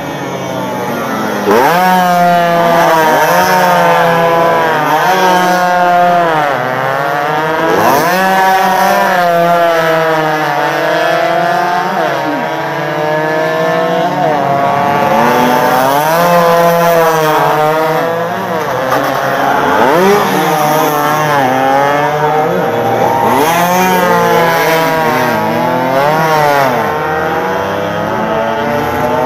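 Several two-stroke 115 cc racing motorcycles revving hard as they pass, more than one engine at once. Their high pitch climbs steadily and then drops sharply at each gear change, over and over.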